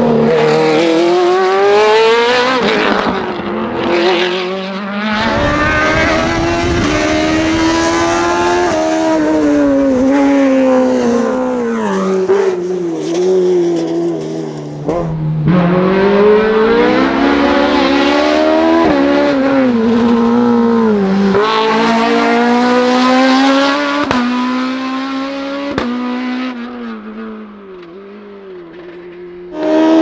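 Hill-climb race car engines at full throttle, one car after another: the pitch climbs and drops again and again with each gear change and lift for the corners. Among them are a single-seat prototype sports car and an Opel Kadett C. The sound fades near the end.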